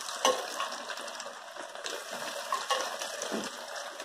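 Breaded chicken nuggets sizzling in hot oil in an aluminium frying pan: a steady hiss broken by a few light clicks.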